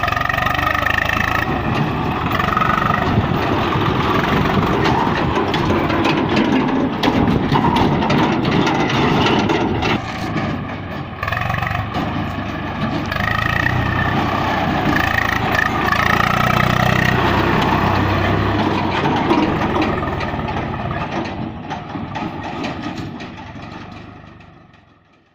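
Swaraj 744 FE tractor's diesel engine running hard as it drives pulling a trolley, a steady loud engine note that fades out over the last few seconds.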